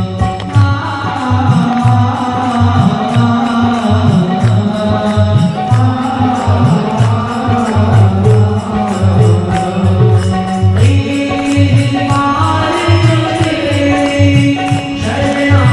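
Hindu aarti hymn sung as a devotional chant over a steady drum beat. The melody moves to a higher line about eleven seconds in.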